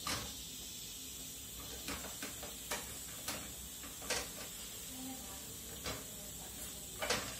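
A spatula knocking and scraping against a hot pan, about eight short, irregular strokes, as a lachha paratha frying in ghee is pressed down, over a steady hiss.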